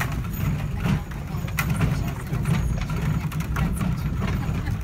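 Horse-drawn stagecoach rolling over a gravel street: a steady low rumble from its iron-rimmed wooden wheels, with scattered clatters and knocks from the coach.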